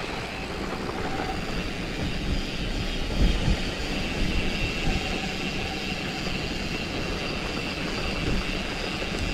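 Mountain bike descending a dirt trail: steady wind rumble on the microphone with tyre roar and the rattle of the bike over rough ground, and a harder jolt about three seconds in.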